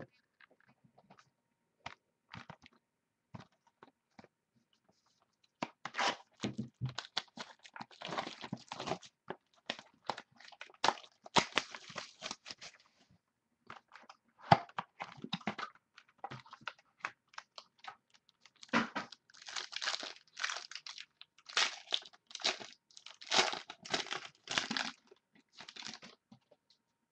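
A sports card pack being torn open and handled: irregular bursts of tearing, crinkling wrapper and rustling, coming in clusters with short pauses between.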